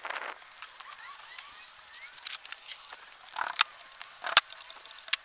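Steel pick scraping and clicking in the rust-packed Allen-head bolt sockets of a hydraulic drive motor as the crud is dug out, with a few sharp ticks of metal on metal, the loudest near the end.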